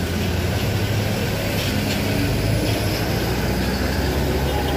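Diesel engine of an intercity coach running as the bus pulls away past, a steady low hum.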